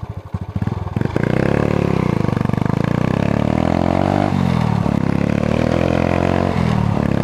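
Single-cylinder Honda CG motorcycle with a GP Competition aftermarket exhaust, running at low revs with slow separate pulses, then accelerating about a second in. The pitch climbs, drops back a couple of times as gears change, and climbs again.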